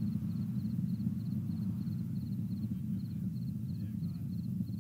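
Low, steady rumble of the Atlas V rocket heard from far off, even with no sudden changes.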